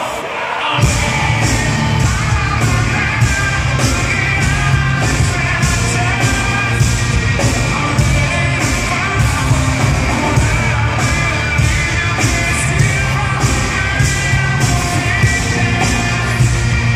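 Hard rock band playing live: distorted electric guitars, bass and a steady drum beat with a male singer over them, the full band coming in about a second in.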